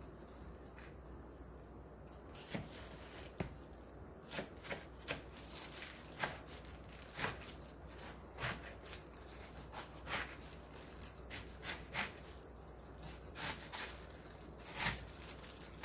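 Kitchen knife chopping through a head of sour kimchi onto a plastic cutting board: about twenty short, irregular chops, starting about two and a half seconds in.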